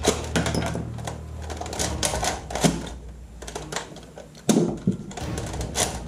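Irregular clicking and clacking of plastic toy gun parts being handled and worked, with louder clacks about two and a half seconds in and again near four and a half seconds.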